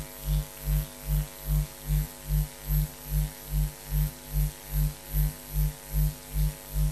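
Low electrical hum on the audio track, swelling and fading evenly about two and a half times a second, with steady higher tones held over it. No ball or play sounds stand out.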